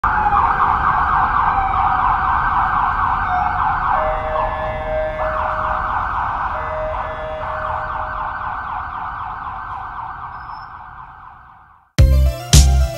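City street ambience: an emergency vehicle siren wailing with a fast wavering pitch over low traffic rumble, a steadier second tone joining for a few seconds in the middle, the whole fading out gradually over the last several seconds. Music with a heavy beat cuts in about a second before the end.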